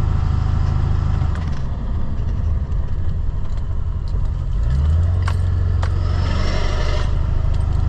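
Motor vehicle engine running with road noise. The engine note drops off about two seconds in and picks up again near the middle. A rushing noise swells near the end.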